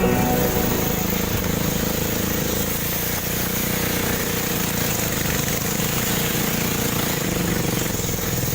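Small river ferry boat's engine running steadily, with a constant hiss over it.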